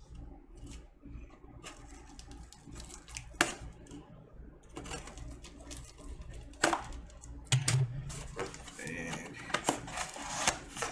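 Cardboard record mailer being handled and pried open by hand: scraping and rustling with a scatter of sharp cardboard and tape snaps, the loudest a few seconds in and again past the middle.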